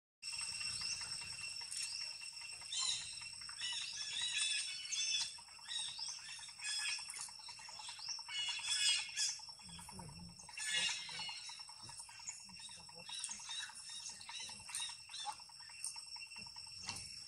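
Natural outdoor ambience: a steady high insect drone with many short, high chirps and squeaks over it, busiest through the first two-thirds, and a few soft low thumps about ten seconds in.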